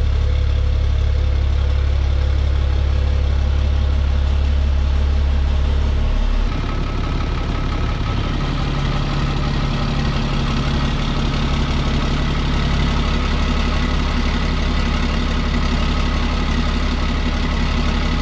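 6.7 Cummins turbo-diesel idling steadily, with the exhaust routed out the rear tailpipe and the hood stack shut off. About six seconds in the sound changes suddenly: the deep low end drops away and it becomes slightly quieter, heard from the engine bay.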